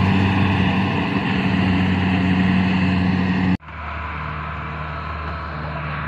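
Combine harvester's engine running steadily and loudly. About three and a half seconds in, it drops abruptly to a quieter, lower engine hum.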